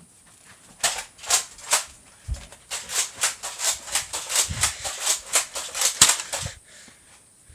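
Foam-dart toy blasters firing: three sharp clicking shots, then a rapid string of about five shots a second, with a few dull thumps among them.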